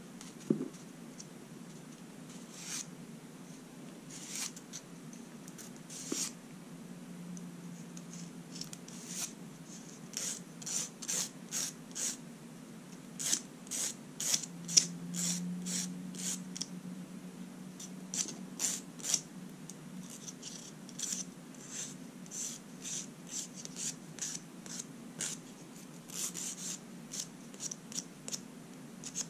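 Manicure tools scraping and rubbing on fingernails in short, irregular strokes, at times a few a second, over a steady low hum.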